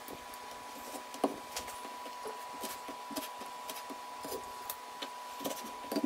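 Scattered light knocks and clicks of seafood and kitchen utensils being handled during cooking preparation, the sharpest about a second in and another near the end, over a steady faint high hum.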